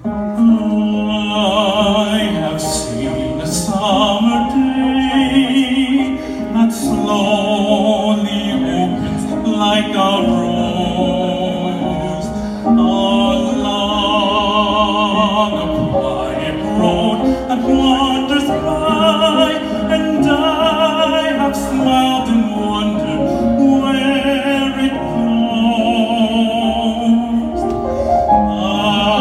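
A man singing a hymn-like song in an operatic style, with a wide vibrato, through a handheld microphone and the hall's PA.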